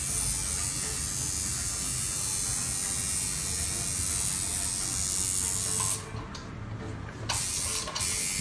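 Electric tattoo machine buzzing steadily as it works, cutting off about six seconds in, then running again in two short bursts near the end.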